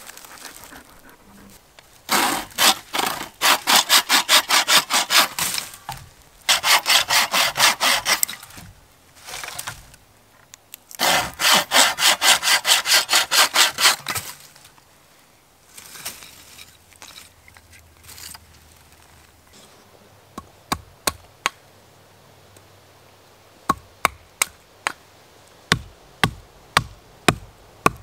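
Wooden bucksaw cutting through a branch in three bouts of fast back-and-forth strokes. Later come sharp wooden knocks, about two a second near the end, as a stake is pounded into the ground with a wooden mallet.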